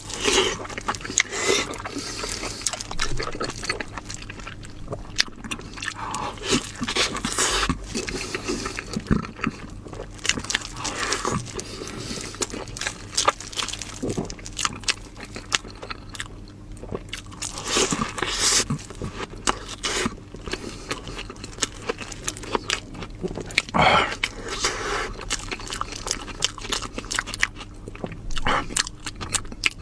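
A person chewing and biting food close to the microphone: irregular wet clicks and crunches, over a faint steady hum.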